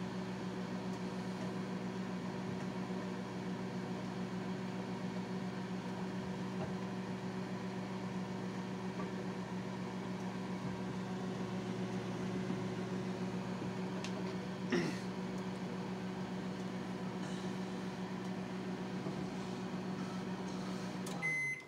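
Microwave oven running: a steady low hum, with one short click about two-thirds of the way through. The hum cuts off just before the end as the cook timer runs out.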